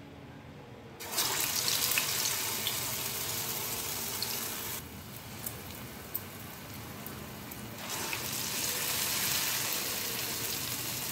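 Urad dal vada batter sizzling in hot oil in a kadai. The sizzle starts suddenly about a second in as a vada drops into the oil, eases somewhat near the middle, and swells again as a second vada goes in.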